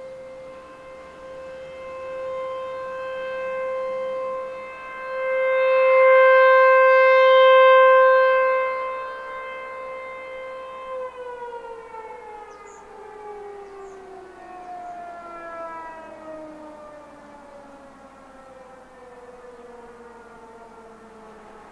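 American Signal T-128 outdoor warning siren sounding a steady single tone that swells and fades in loudness. About halfway through it shuts off and winds down, its pitch sliding slowly lower as it fades: the end of the test run.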